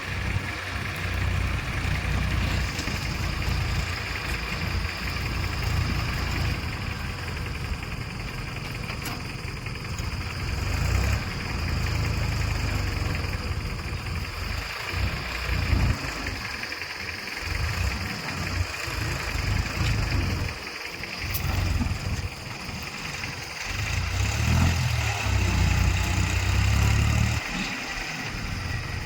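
A heavy machine's diesel engine running, its low rumble swelling and easing several times and loudest near the end.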